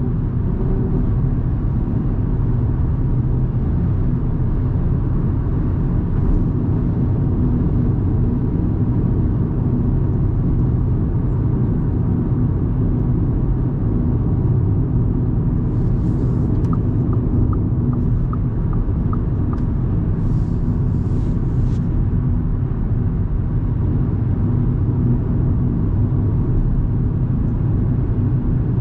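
A 2024 Audi A3 Sportback 1.5 TFSI (turbocharged four-cylinder petrol) driving, with a steady engine and road rumble. A short run of light, evenly spaced ticks comes about halfway through.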